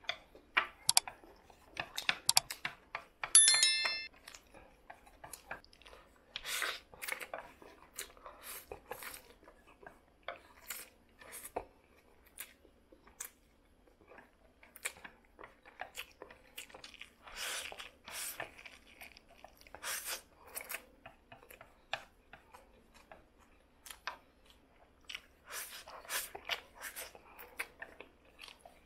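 Close-up mouth sounds of eating black noodles: slurping, lip smacks and wet chewing in short bursts, with the clicks of chopsticks on the plate. A brief ringing clink about three and a half seconds in is the loudest sound.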